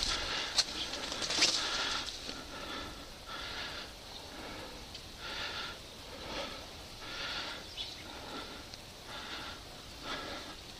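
A person breathing hard and evenly right at the microphone, about one breath a second, with two sharp clicks or knocks in the first second and a half.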